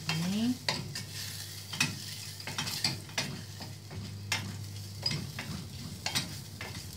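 A wooden spoon stirring and scraping in a small stainless-steel saucepan, with irregular knocks against the pan. Under it is a faint sizzle of onion and garlic sautéing in oil.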